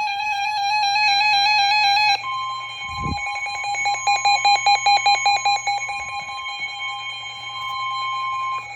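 Weather radio emergency alert: warbling electronic alarm beeps, then from about two seconds in the long steady weather-service warning tone with rapid pulsing beeps over it, cutting off near the end. It signals a severe thunderstorm warning about to be read.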